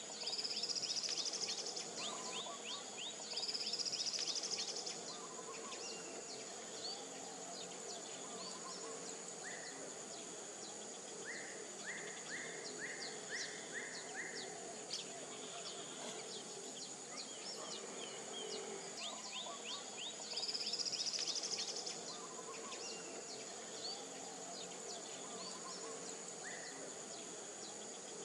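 Tropical insects and birds: a steady high insect drone, with three loud rising buzzes, two near the start and one about two-thirds of the way through. Many short bird chirps run throughout, and a run of about six repeated notes comes around the middle.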